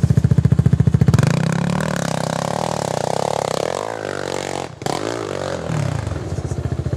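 Sport ATV engine idling with an even pulsing beat, then revving up about a second in and running hard. Its pitch sweeps and falls off through the middle, and it settles back to a pulsing idle near the end.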